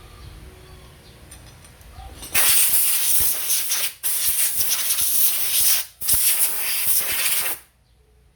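Pressurised spray hissing out in three bursts of about two seconds each, with short breaks between, starting about two seconds in and stopping abruptly near the end.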